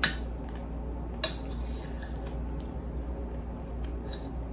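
Metal spoon clinking against a ceramic plate as it scoops molten chocolate cake: a sharp clink at the start and another about a second later, then a few faint ticks near the end, over a steady low hum.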